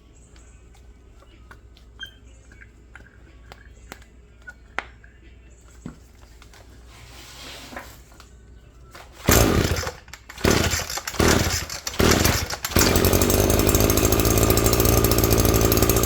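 Echo edger's two-stroke engine, just fitted with a new carburetor and fuel lines, firing and sputtering in fits about nine seconds in, then catching and running steadily. Before that, a few light clicks and knocks.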